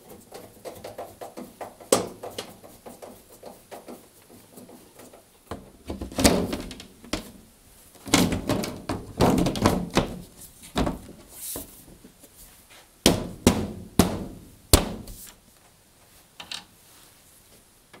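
Tumble dryer's metal side panel and lid being fitted back on: a string of knocks and thuds, with denser, louder clattering from about six to ten seconds in and a few sharp knocks a little later.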